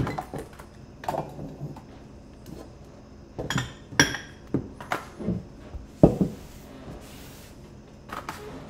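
Ceramic dishes being picked up and set down on a wooden counter: a string of separate knocks and clinks, about one a second, with a short soft rustle near the end.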